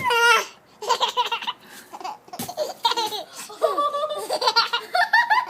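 Baby laughing hard: a run of high-pitched belly laughs in bursts of giggles, one after another with short breaks for breath.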